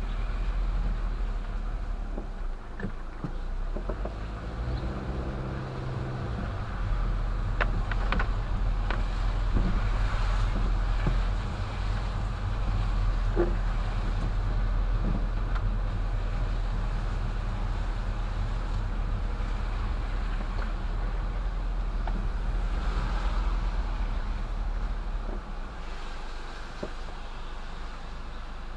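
Car driving on wet city streets, heard from inside the cabin: a steady low rumble of engine and tyres with a hiss of tyres on the wet road and scattered light clicks. It goes a little quieter near the end.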